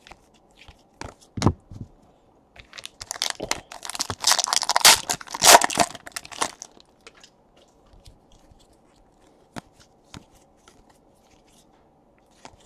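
A foil wrapper on a pack of Panini Contenders Draft Picks football cards being torn open and crinkled, a crackling tear lasting a few seconds, starting a couple of seconds in. Scattered light clicks and a soft thump come from cards being handled before and after.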